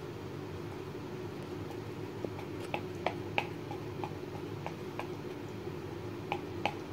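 Light, irregular clicks and taps of a metal fork pricking rolled sheermal dough and touching the wooden board beneath, starting about two seconds in, over a steady low background hum.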